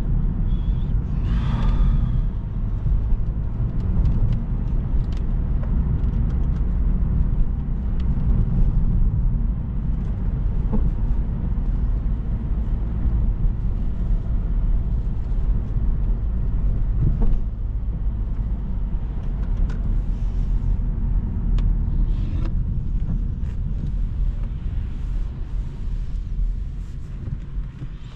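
Car driving on a snowy road: a steady low rumble of engine and tyres, with scattered light clicks and knocks, easing off a little near the end.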